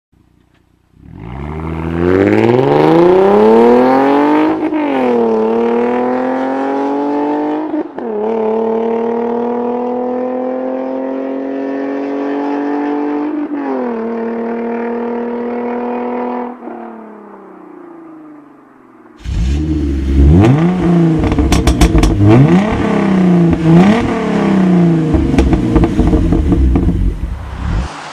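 Hyundai Genesis Coupe 3.8 V6 with a custom true dual exhaust accelerating hard away, climbing in pitch through three upshifts before fading into the distance. About two-thirds of the way in, it switches to a louder, coarser 2010 Genesis Coupe 2.0T turbocharged four-cylinder, which revs up and down repeatedly as it drives past.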